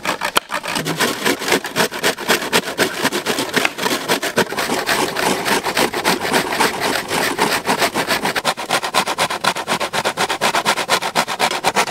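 Dried coconut half scraped against a hand coconut grater, in rapid, evenly repeated scraping strokes.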